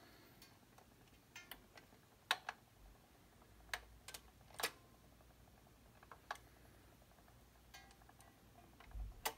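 Quiet room with a dozen or so faint, irregularly spaced clicks and ticks, and a slightly louder knock near the end.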